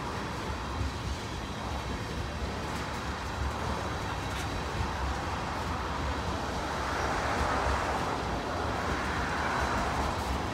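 Train rolling past: a steady rumble of wheels on rail that grows somewhat louder about seven seconds in.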